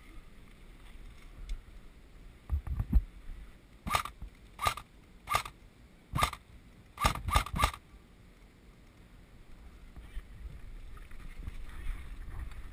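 A few dull low knocks, then an airsoft rifle fired in single shots: seven sharp pops over about four seconds, the last three in quick succession.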